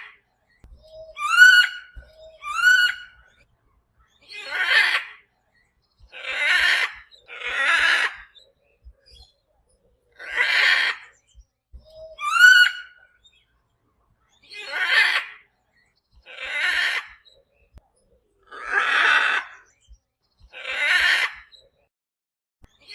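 Parrot calling over and over, about every two seconds: mostly harsh squawks, with three clearer rising calls, each led by a short low note.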